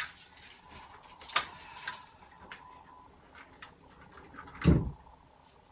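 Scattered light clicks and knocks of work handling, with one heavier, deeper thump near the end.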